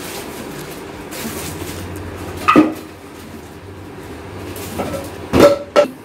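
Dishes and containers being handled and set down: three sharp knocks with a short ring, one about two and a half seconds in and two close together near the end, over a steady low hum.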